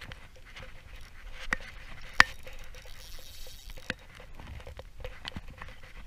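Scattered light clicks and handling taps from a Nasci 1000 spinning reel being worked by hand, with one sharp click about two seconds in.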